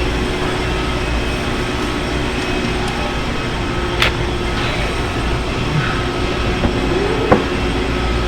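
Steady drone of running industrial machinery, with a low hum and a held tone. A sharp click comes about four seconds in and a short knock near the end, from hand work on the disconnect's wiring.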